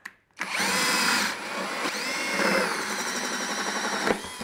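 Cordless drill turning a metal hole saw through the wall of a plastic bucket. The motor starts under half a second in with a rising whine, runs on with its pitch wavering as the teeth cut the plastic, and stops abruptly just before the end.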